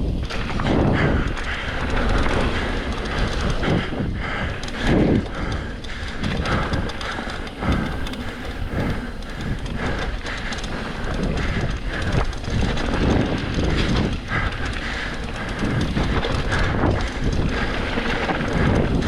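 Mountain bike rolling fast over rough trail: a constant low rumble with irregular knocks and rattles from the bike and tires on the ground.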